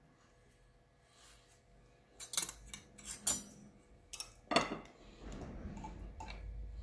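A spoon clinking and clattering against tableware: a run of sharp clinks about two seconds in and a second run about a second later, followed by low handling rumble.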